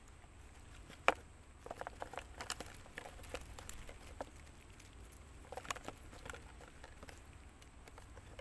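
Mesh fish trap being handled and shaken, crackling and clicking in irregular clusters, with one sharp click about a second in.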